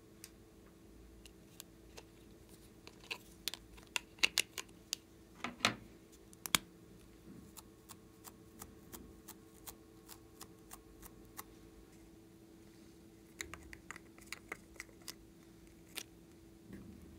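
Scattered sharp clicks and taps of small hard-plastic cosmetic containers being handled and opened, coming in two clusters, with a faint steady hum underneath.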